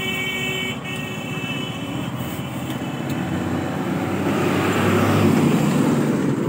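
Street traffic: a motor vehicle's rumble swells to its loudest about five seconds in as it passes, then eases off. A steady high-pitched whine sounds over it for the first two seconds or so.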